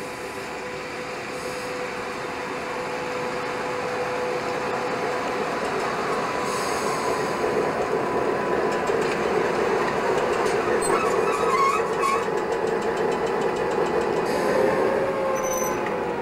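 DR Class 232 diesel locomotive running slowly past close by, its engine drone and rolling wheels growing steadily louder. A steady hum underlies it, with a few brief squeals from the wheels past the middle.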